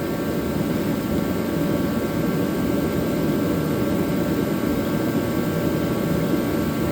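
Shop space heater running: a steady rushing blower noise with a few faint steady tones above it.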